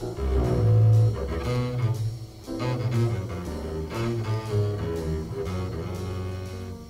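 A 1959 small-group jazz recording with the double bass prominent, playing a line of short, low, changing notes. There are brief breaks in the phrase near the start and near the end.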